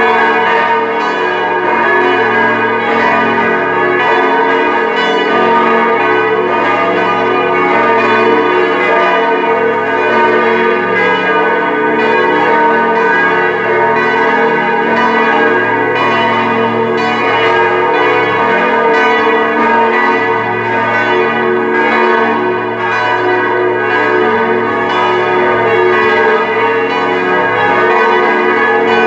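Full peal of four Grassmayr-cast church bells, tuned B♭, E♭, G♭ and A♭, ringing together as a call to Mass. The strikes overlap continuously at a steady level.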